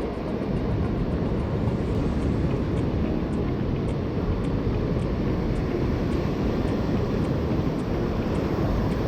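Steady low rumbling noise of wind and breaking surf on an open beach.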